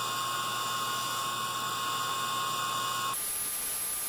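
Cordless drill running steadily, spinning a valve of a VW 1.8T 20-valve head against its seat in lapping compound to grind the seal in. Its tone shifts about three seconds in.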